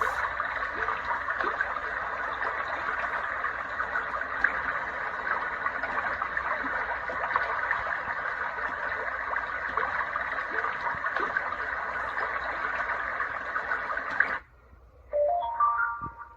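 Sunrise alarm clock's sound machine playing a steady rushing, noise-like sound through its small speaker, which cuts off suddenly near the end. Shortly after comes a brief chime of rising notes from the device.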